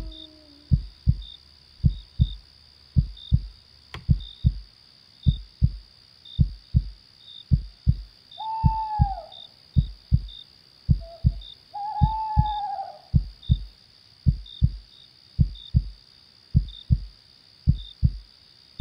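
A slow heartbeat, paired lub-dub thumps about once a second, over a steady high cricket chorus. An owl hoots twice, about eight seconds in and again about twelve seconds in.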